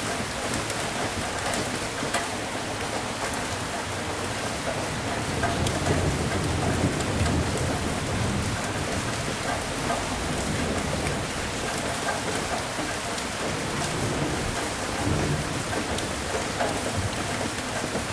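Steady heavy rain falling, with low rolling thunder that swells a few seconds in and rumbles again near the end.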